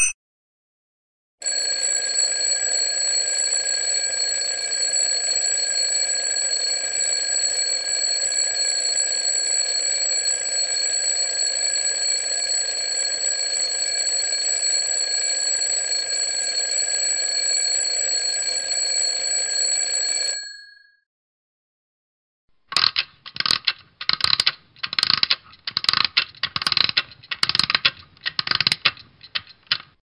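Analogue alarm clock bell ringing: a continuous, steady ring starts about a second and a half in, holds for about nineteen seconds, then dies away. After a pause of about two seconds the bell rings again in short, uneven bursts.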